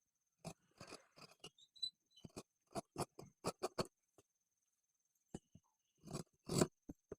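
Scissors cutting through dress fabric: a run of short, irregular snips, with the loudest cluster about six and a half seconds in.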